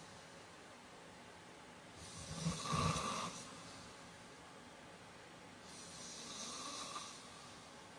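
A man snoring in his sleep. About two seconds in comes one loud, rattling snore, and around six seconds a quieter, airy breath follows.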